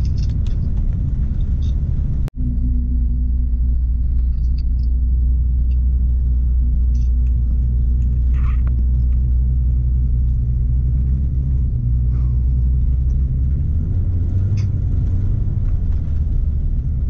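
Porsche 944's inline-four engine and tyre noise heard from inside the cabin while driving, a steady low drone. It breaks off for an instant about two seconds in, and the engine note shifts a little later on as the speed changes.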